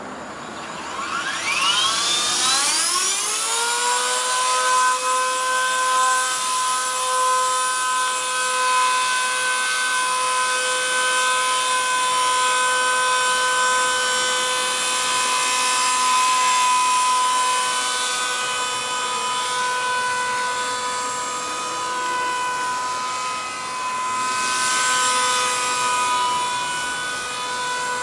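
Gaui Hurricane EP200 V2 electric RC helicopter spooling up, its motor and rotor whine rising in pitch over the first few seconds, then holding a steady high whine in flight.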